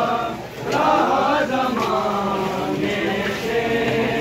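A group of men chanting a noha, a Shia mourning lament, together in unison, with a short break about half a second in before the next phrase.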